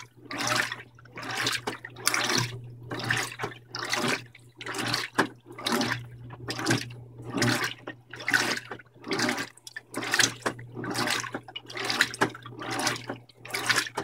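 Electrolux LDD16 top-load washer agitating a load of clothes in water at medium level: the water sloshes and splashes in regular surges, a bit more than once a second, as the agitator swings back and forth over a steady motor hum, then it stops suddenly at the end. It is the short first agitation, which the owner finds too weak to move and clean the clothes.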